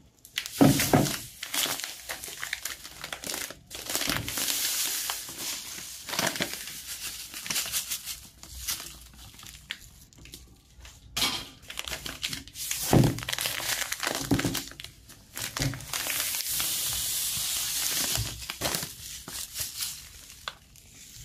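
Dry medium couscous grains poured into a wooden bowl: a hiss of running grain in long pours, with rustling and knocks between them.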